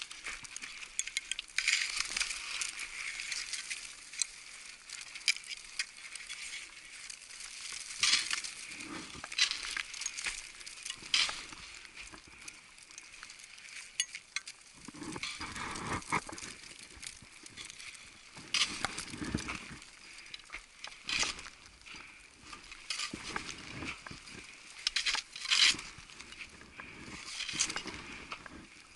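Irregular crunching and scuffing of deep snow as a roped climber kicks steps up a steep snow slope, in sharp bursts of varying loudness with a heavier stretch about halfway through.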